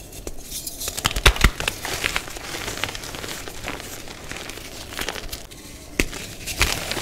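Blocks of dyed gym chalk crushed and crumbled between the hands into loose powder: a run of crisp crunches and crackles, loudest a little over a second in and again near the end.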